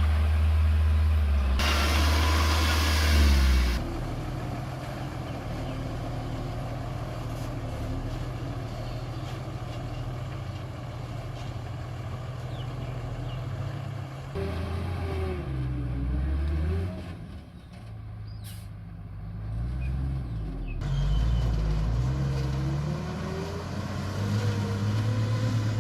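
Diesel engine of a piece of earthmoving machinery running, its speed rising and falling several times in the second half. A short, loud hiss comes about two seconds in.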